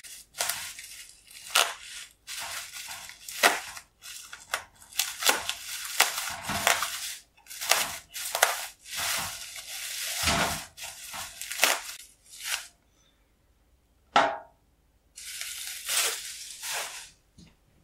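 Bubble wrap crinkling and rustling as a packed item is unwrapped by hand. A single sharp clack comes about fourteen seconds in, then a little more rustling of the wrap.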